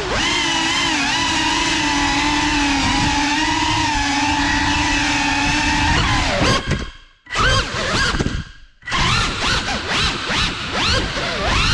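Cinelog 35 cinewhoop's brushless motors and ducted props whining at a steady throttle, then the throttle cut twice, the sound dropping almost to silence each time, followed by quick rising and falling whines as the pilot works the throttle.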